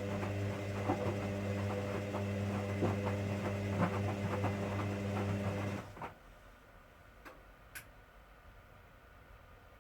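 1959 Hoover Daily washing machine running with a steady motor hum and irregular knocks. It cuts off suddenly about six seconds in, and two faint clicks follow.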